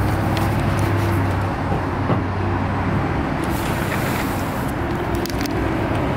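A car engine running close by, a steady low hum with road-traffic noise around it; the hum is strongest in the first second or so.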